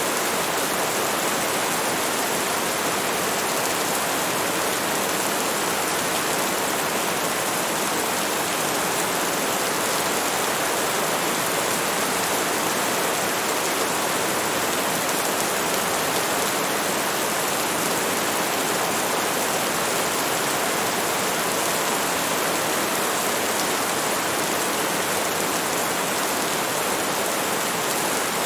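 Steady heavy rain: an even, unbroken hiss with no single drops or thunder standing out.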